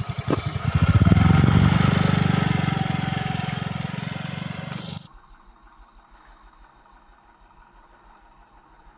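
Vehicle engine running close by with a rapid, even pulse, growing louder about a second in. It cuts off suddenly about five seconds in, leaving only a faint low hum.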